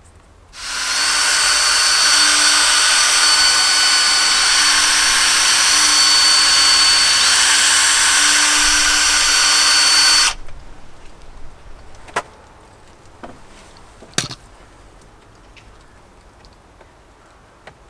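Makita cordless drill-driver running steadily for about nine seconds, backing out the gate's hinge screws, then cutting off sharply. Two light knocks follow.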